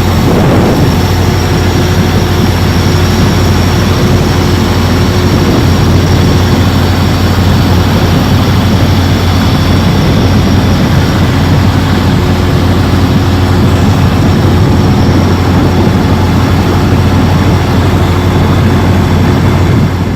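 Loud, steady engine drone with a constant low hum under a wide rushing noise, unchanging throughout.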